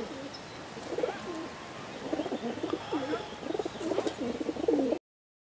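Feral rock pigeons cooing, one low coo after another, thicker toward the end, then cutting off suddenly.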